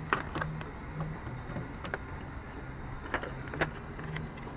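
Scattered sharp clicks and knocks of a plastic interior door trim panel being fitted back onto a car door, about five in all, over a low hum that comes and goes.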